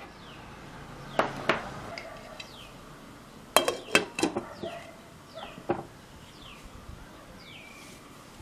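A glass lid is handled and set onto a stainless steel cooking pot, making a few sharp clinks and knocks about a second in and a cluster around the fourth second. Several faint, short, falling chirps sound in the background.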